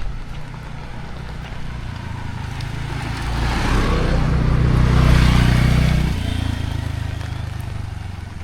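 A motor vehicle passing close by on the road: its engine and tyre noise build up, peak about five seconds in, then drop in pitch and fade as it goes past.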